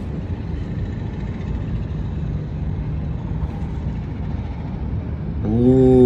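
Steady low rumble of distant city traffic. About five and a half seconds in, a loud held pitched tone sets in over it, sliding slightly down.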